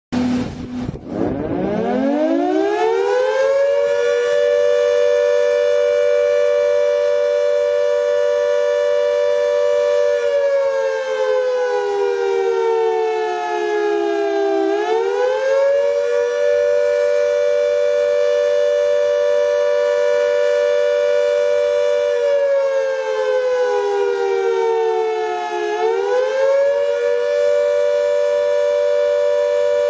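Civil defence air raid siren winding up from a low pitch over the first few seconds to a steady high wail, two close pitches sounding together. Twice it sags slowly in pitch and swings back up, the rising and falling wail of an air raid warning.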